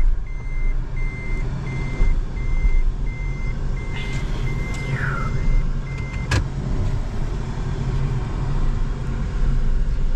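A Toyota car's reverse-gear warning beeper beeping steadily, about two beeps a second, over the low rumble of the car moving; the beeping stops about six seconds in with a sharp click, the car now out of reverse.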